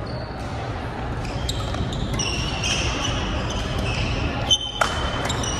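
Badminton rally: sharp racket strikes on a shuttlecock, the loudest near the end, and short high squeaks of court shoes on the wooden floor, over a steady low hum.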